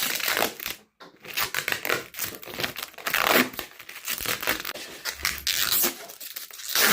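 Plastic wrapping being torn and pulled off a new refrigerator: irregular ripping and crinkling of plastic film, with a brief break about a second in.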